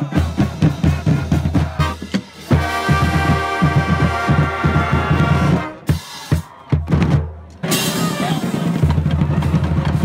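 High-school marching band playing a stand tune: the drumline beats a busy pattern on bass drums and snares, and brass join on a held chord about two and a half seconds in that breaks off near six seconds. A cymbal crash comes just before eight seconds, followed by steady low drumming.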